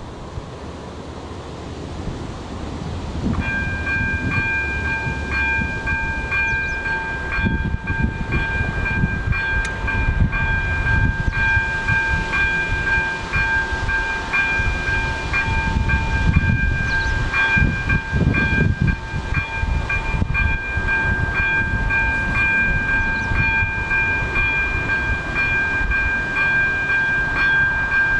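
AŽD ZV02 electronic level-crossing bell ringing steadily in several tones, starting about three seconds in as the crossing's warning lights begin flashing for an approaching train. A low rumble runs underneath and swells at times.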